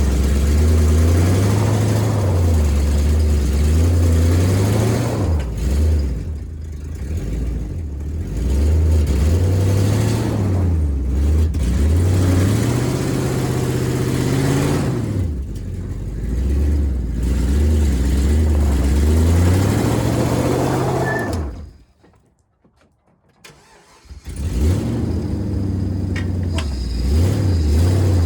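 Gasoline 6.0-litre LS V8 of an old Silverado, freshly refuelled after running dry, revved up and down repeatedly to keep it running. About 21 seconds in the engine dies away, and about three seconds later it is running and revving again.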